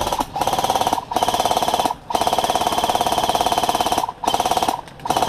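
Airsoft electric gun (AEG) firing on full auto in about six rapid bursts, the longest about two seconds in the middle, its gearbox rattling with a motor whine through each burst.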